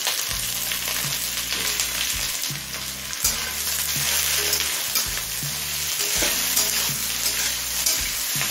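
Chopped onions sizzling in hot mustard oil in a kadai as they are stirred, with a few short knocks of the spatula against the pan.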